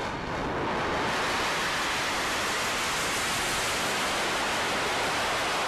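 Falcon 9 first stage's Merlin engine firing in its landing burn as the booster comes down onto the pad: a steady rushing noise that builds over the first second and then holds even.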